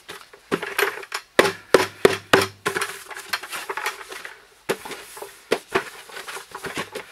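Blue 5-gallon plastic bucket being turned over, shaken and knocked to empty out the plastic shavings left by the hole saw: an irregular string of knocks and rattles as the loose shavings shake out.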